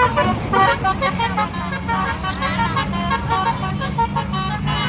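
Tour bus's 'telolet basuri' musical horn playing a quick melody of changing tones, with a low engine drone underneath.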